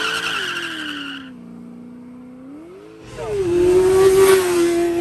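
Pontiac GTO V8 revving hard as it launches away with the tyres squealing. About a second in, the squeal stops and the revs fall away, then rise briefly. An abrupt change follows, and a different engine is held at steady high revs.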